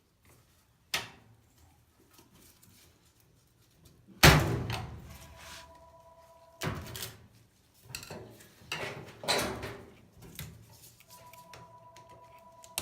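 Knocks and clanks from work on a dryer: one loud bang about four seconds in, then several lighter knocks. Twice a short steady two-pitch tone sounds.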